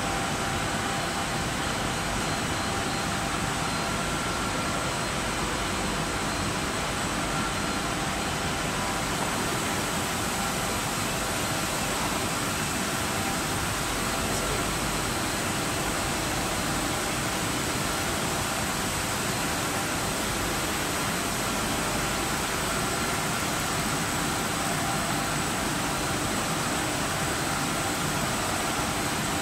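Nordmeccanica Super Combi 3000 film laminator running in production: a steady, even machine hum with faint constant whining tones and no change in pace.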